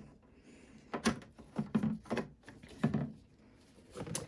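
Handling of the parts of an ELM USA RTI EcoPro disc repair machine: about five separate knocks and clicks at irregular intervals as the parts are set and fitted back in place.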